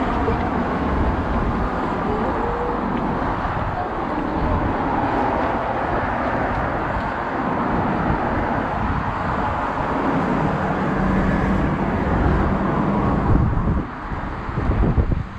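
Outdoor city ambience: road traffic going by, with a steady engine hum near the end and faint voices of passers-by.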